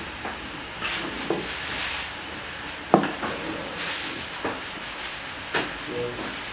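Irregular knocks, taps and rubbing from hands and utensils at work preparing food, with one sharp knock about three seconds in.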